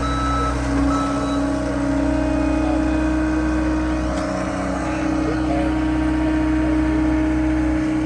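Heavy equipment engine running steadily at constant speed, with a backup alarm beeping twice in the first second and a half, then stopping.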